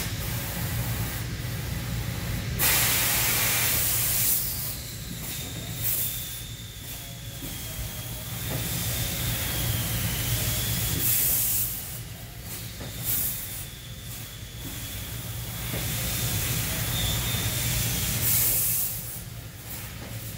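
Industrial fiber laser cutter cutting aluminum sheet: a steady machine hum under several loud bursts of hissing assist gas, the longest a few seconds in. A faint, wavering high tone runs between the bursts.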